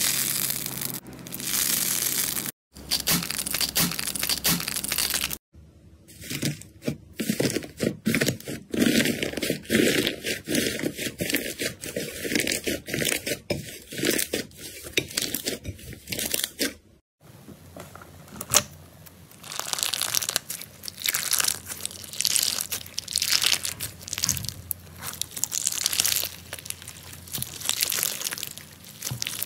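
Slime being squeezed, pressed and stretched by hand: a dense run of crackling, popping and sticky tearing sounds. The sound breaks off and starts again abruptly three times as one slime gives way to the next, from a crunchy foam-bead slime to a clear slime packed with jelly cubes.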